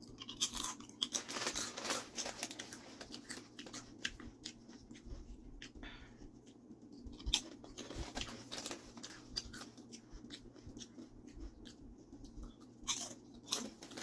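A person biting into and chewing potato chips: many short, sharp crunches, with a couple of louder ones near the end.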